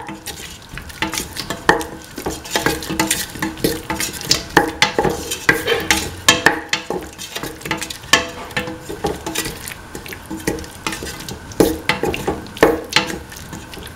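Spatula scraping and tapping against a metal pan in quick, irregular strokes while stirring sautéing tomatoes, shallots and garlic, over a light sizzle of frying.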